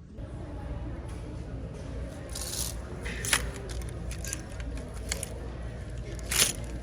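Handling sounds in a clothing store: a steady low hum of the shop with scattered sharp clicks and short scrapes. The loudest click comes about three seconds in, and another about six seconds in.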